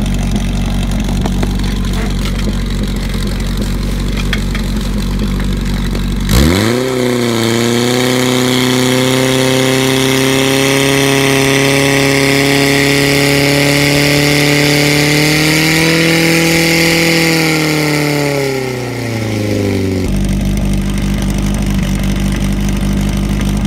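Portable fire pump engine idling steadily, then revved suddenly to full throttle about six seconds in and held at a high, steady pitch while it pumps water into the attack hoses. Near eighteen seconds it winds down and is back at idle about two seconds later.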